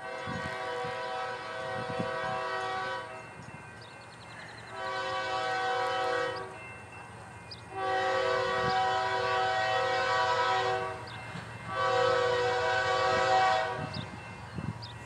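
Diesel freight locomotive's multi-chime air horn sounding four blasts, the second and fourth shorter than the others.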